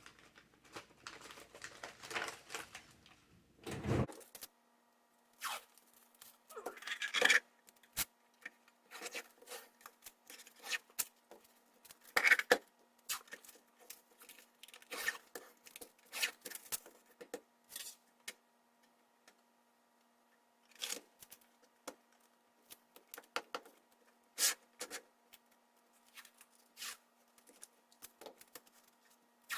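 Hands working on an Ender 3 3D printer's frame to reposition the Z limit switch: scattered clicks, scrapes and rustles of parts and wiring being handled. A faint steady hum comes in about four seconds in.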